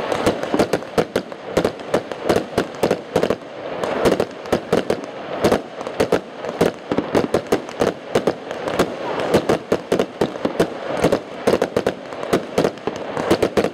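Fireworks display: aerial shells bursting in a dense, irregular string of sharp bangs, several a second, over a continuous rumble.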